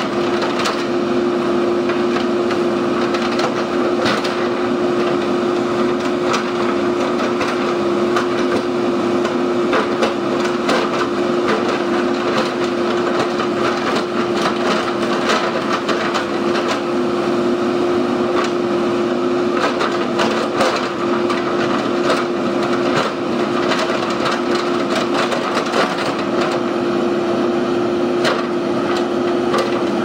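JCB backhoe loader working, its diesel engine running steadily with a constant hum while the rear bucket scrapes and drags stony soil, giving scattered clicks and clatters of stones and grit.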